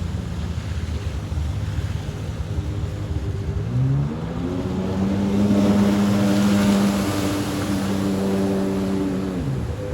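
Sea-Doo RX DI jet ski's two-stroke engine revving up about three and a half seconds in, holding a steady high note, then dropping back to a low rumble near the end.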